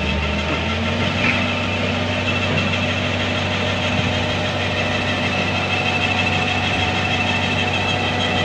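Komatsu PC200 excavator's diesel engine running steadily as the machine works to climb the loading ramp of a flatbed truck.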